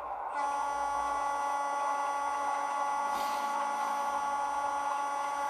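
Sound-fitted Heljan Class 33 model locomotive's decoder speaker playing a steady pitched tone with many overtones, held for about five seconds, starting and stopping abruptly.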